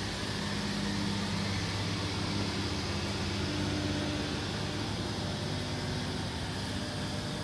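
High-pressure misting system running: a steady hiss of spray with a low machine hum under it.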